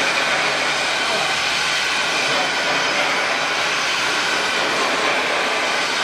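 Steady, loud machine noise with no separate blows or changes: something mechanical running continuously.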